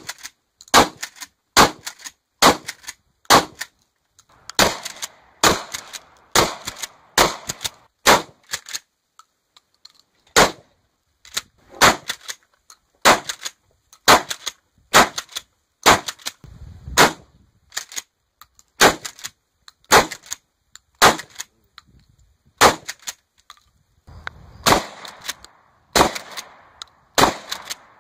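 Mossberg 590A1 12-gauge pump-action shotgun with a 14.5-inch barrel firing shot after shot, about two dozen loud blasts at roughly one a second, with a pause of about two seconds about a third of the way in.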